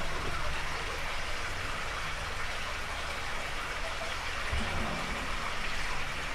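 Recording of spring water flowing steadily through an underground stormwater drain, a continuous rushing wash over a low rumble. A soft low thump, which comes from a car driving over a manhole and reverberating through the drain, is heard about four and a half seconds in.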